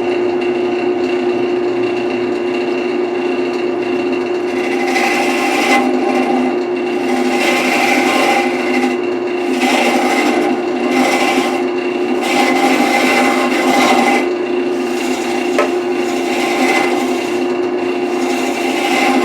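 Wood lathe running with a steady motor hum while a carbide turning tool cuts the spinning wood. The scraping cuts start a few seconds in and come as a series of passes, about one every one to two seconds.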